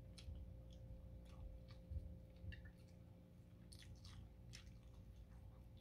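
Faint chewing of chicken adobo, with scattered small wet clicks as meat is pulled from the bone by hand.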